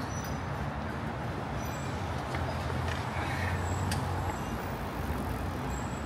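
City road traffic: a steady low rumble of passing vehicles, swelling a little around the middle.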